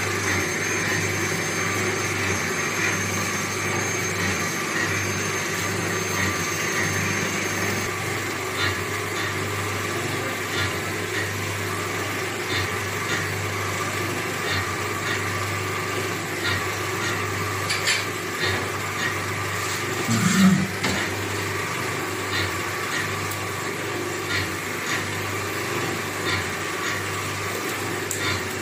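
Electric stirrer motors of steam-heated khoya (mawa) kettles running steadily with a constant hum, with scattered light clicks and one louder bump about two-thirds of the way through.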